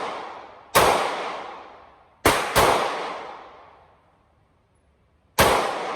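Glock 43 9mm pistol fired four times, with two shots in quick succession in the middle. Each shot is followed by a long echoing decay.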